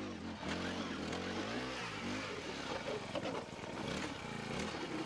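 Gas-powered ice auger engine running and drilling through the ice, its pitch rising and falling again and again as the revs change.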